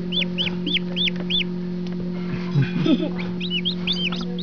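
Newly hatched chicks peeping, short high cheeps about three a second. The peeps break off for a moment around the middle, then come back faster and overlapping as several chicks call at once. A steady low hum runs underneath.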